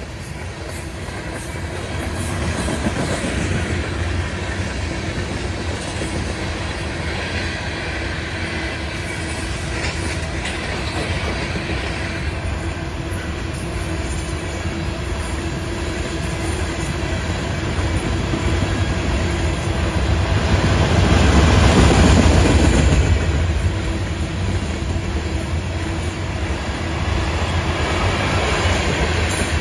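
Loaded ore hopper cars of a freight train rolling past: a steady rumble of steel wheels on rail, growing louder about two-thirds of the way through.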